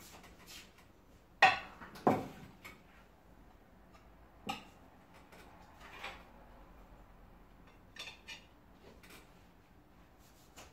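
Plates of rice knocking and clinking on a table as they are swapped: two sharp knocks about a second and a half and two seconds in, then a few fainter clicks.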